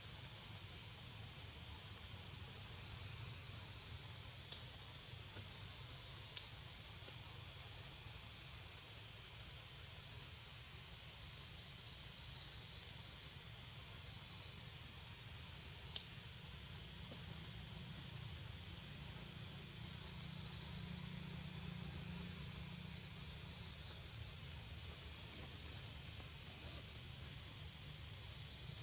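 Steady, high-pitched drone of forest insects, unbroken and even in level, over a faint low hum.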